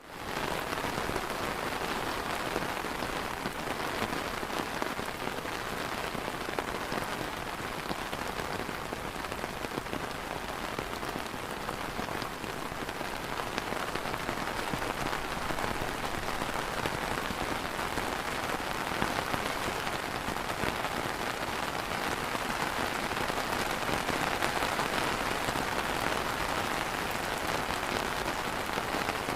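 Steady rain pattering on an umbrella canopy: a dense, even drumming of drops, fading in at the start.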